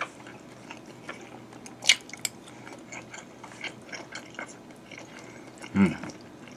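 A person chewing a mouthful of fried rice, with a sharp clink of cutlery on the plate about two seconds in and a short low hum near the end.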